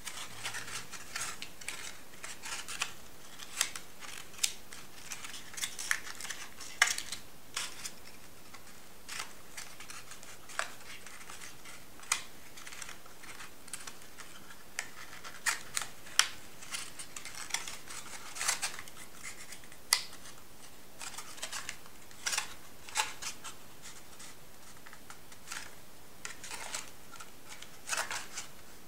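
Stiff metallised and drawing paper being folded and pressed into tree-tiers by hand, crinkling and rustling with many irregular sharp crackles.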